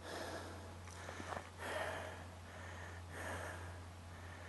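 A person breathing close to the microphone, about three breaths a second and a half apart, over a steady low hum.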